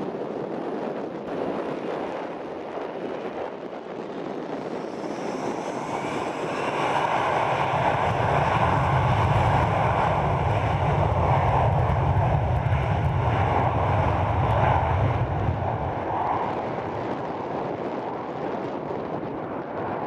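Embraer Legacy 600 business jet's two rear-mounted turbofan engines running as it turns on the runway. Power comes up about five seconds in with a rising whine over a deep rumble, stays loudest through the middle, then eases back near the end.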